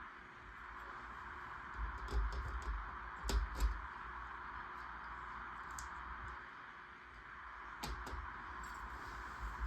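Plastic LEGO Technic pieces being handled and pressed together: scattered clusters of small clicks and rattles with light knocks, over a steady background hiss.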